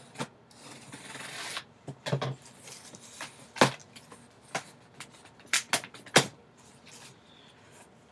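Scissors slitting the packing tape on a cardboard box, a scratchy hiss of about a second, then the cardboard box being worked open by hand: several sharp knocks and taps of the flaps with rustling between them.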